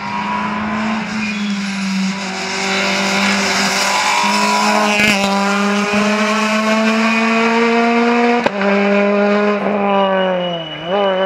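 Citroën C2 rally car engine at high revs, pulling away, its pitch holding and then climbing slowly, with a sharp crack about eight and a half seconds in. Near the end the revs drop, then a quick rev rise and fall as it slows for the junction.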